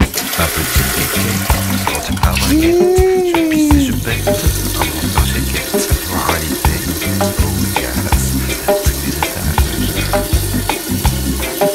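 Japanese electronic bidet toilet seat spraying its wash jet into the bowl: a steady, loud hiss of water spattering. A brief whine rises and falls about three seconds in.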